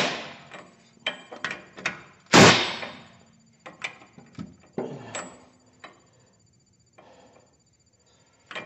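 Metal tools handled on a rear differential's pinion nut: two loud metallic knocks, one at the start and one about two and a half seconds in, then a run of lighter clicks and taps.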